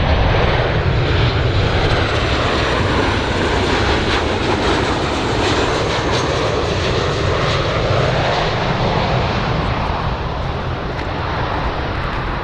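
Jet engines of a Boeing 737 airliner on landing approach, a steady rushing drone that swells and falls slowly in tone around the middle as the plane passes.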